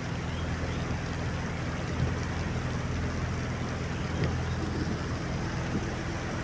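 Klotok river boat's engine running steadily with a low, even hum, along with the wash of water and wind noise as the boat cruises.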